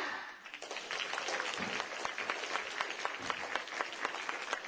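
Audience applauding. The separate claps come thick and fast from about half a second in.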